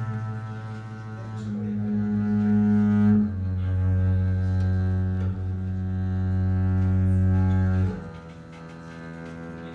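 Double bass played with a bow: long held low notes with a rich, buzzy overtone sound, changing pitch every few seconds and swelling in loudness, then dropping much quieter about eight seconds in.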